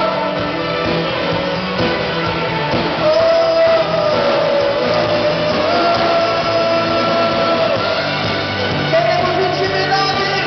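A live church worship band playing a Portuguese worship song, with acoustic guitar and band under singers holding long, sustained sung notes.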